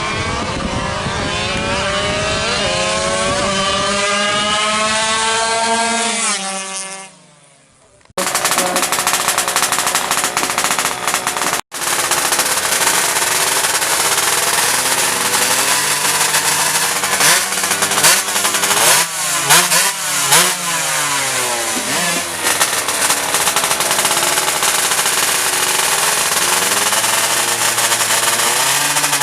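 Two-stroke underbone drag-bike engine, tuned to 116cc, revving hard as it accelerates, its pitch climbing for about six seconds before fading away. After a cut, loud two-stroke engine noise with several quick revs rising and falling near the middle.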